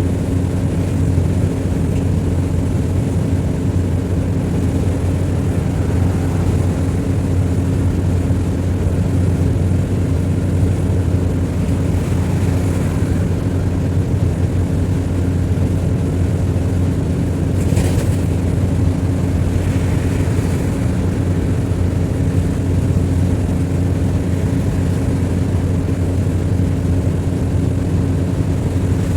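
A vehicle's engine running steadily with road noise, heard while driving, a continuous low drone with no change in pitch. There is one brief sharp rattle about two-thirds of the way through.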